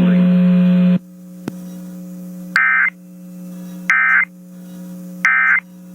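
Emergency Alert System end-of-message data bursts: three short, identical electronic warbling blasts about 1.3 seconds apart, closing the tornado warning broadcast. Before them a loud static hiss with a steady hum cuts off about a second in, and a low hum runs underneath.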